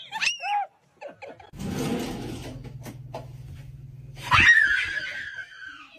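A sudden thump and then a person's loud, high-pitched scream that falls in pitch, about four seconds in.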